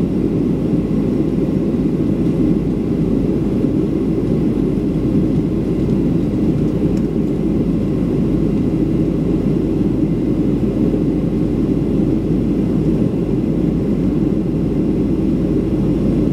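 Steady low rush of a Boeing 737-500's CFM56-3 turbofan engines and airflow, heard inside the cabin during the climb after takeoff.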